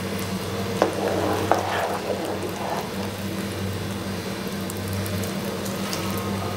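Thick sugar syrup boiling hard in a pan, a steady bubbling sizzle, under a low steady hum. There are a couple of light clicks about a second in. The syrup has reached the one-string consistency wanted for halwa.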